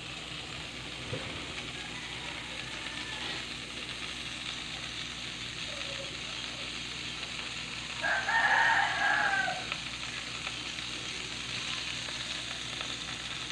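Oil sizzling steadily in a frying pan. About eight seconds in, a rooster crows once loudly, a call of under two seconds and the loudest sound here.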